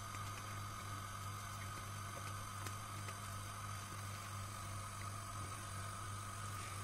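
Steady low electrical-sounding hum with an even hiss, over which a few faint rustles and taps come from hands pressing minced-meat patties into flour on a sheet of paper.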